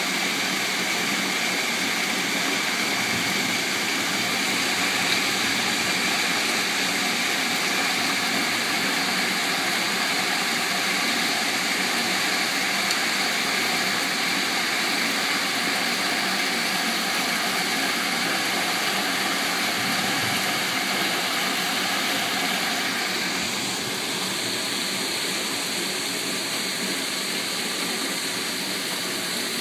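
Heavy hailstorm: large hailstones and rain pelting down in a steady, dense rush of noise, slightly quieter after about 24 seconds.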